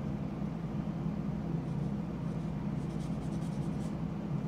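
Nail file rubbed back and forth over a small plastic model-kit part, smoothing a nub mark: a quick run of faint scratching strokes in the second half. A steady low hum runs underneath.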